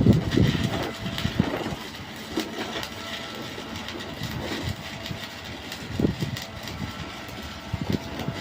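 Stick-welding (SMAW) arc crackling and hissing steadily, with a low machine rumble underneath that swells near the start and again about six seconds in.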